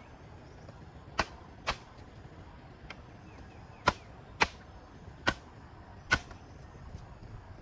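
Six sharp knocks, spaced unevenly and loosely in pairs, each one a single hard strike.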